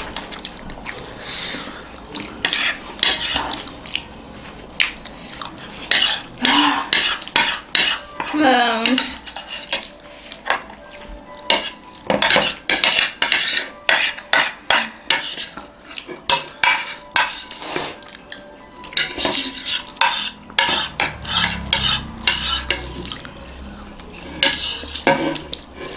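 Spoons clinking and scraping against plates in a rapid, irregular run of sharp clicks as papadi chaat is eaten in a hurry.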